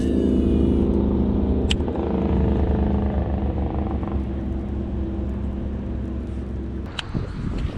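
A boat motor running steadily with an even engine-like hum, then cutting off suddenly about seven seconds in; a sharp click about two seconds in.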